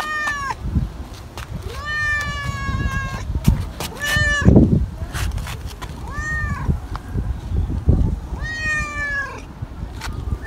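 A tabby-and-white cat meowing repeatedly: about five meows, some long and drawn out, some short. There is low rumbling throughout and a low bump about halfway through.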